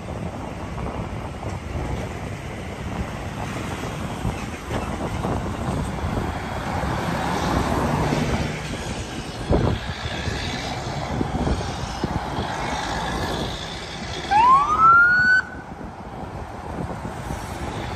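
Convoy of vehicles driving past, with steady engine and tyre noise that swells as a semi truck goes by and a brief thump about halfway. Near the end an emergency vehicle's siren gives one short, loud rising whoop.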